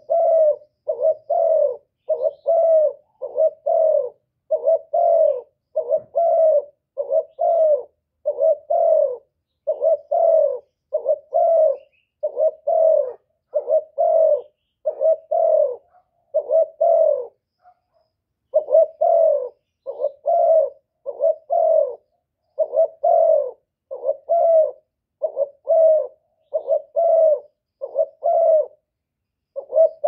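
Spotted dove cooing over and over in steady repeated phrases of low, soft coo notes, with a brief pause a little past the middle.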